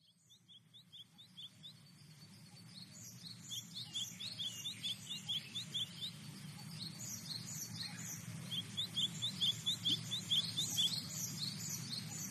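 Ambience of small birds chirping, fading in from silence: many short, quick, high chirps in runs of several a second over a low steady rumble, growing louder throughout.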